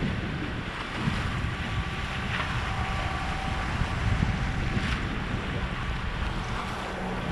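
Wind buffeting the microphone and water rushing along the hulls of a catamaran motorsailing under engines and jib, with a steady low drone from its engines underneath.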